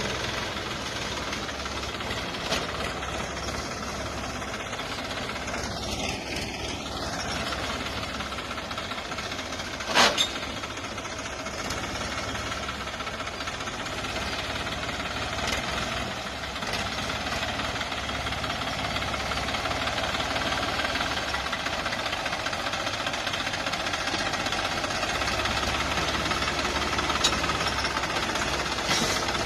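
Mahindra 495 DI tractor's three-cylinder 45 hp diesel engine running steadily with its knocking diesel clatter. A single sharp knock stands out about ten seconds in.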